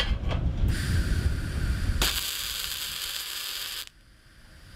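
MIG welding arc on steel plate: a steady sizzling crackle starts under a second in, grows stronger about two seconds in and stops suddenly near the end as the arc is broken. A low rumble underneath fades out about two seconds in.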